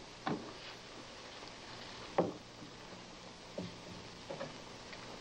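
A few soft, short knocks, the loudest about two seconds in, over the steady low hum and hiss of an old television soundtrack.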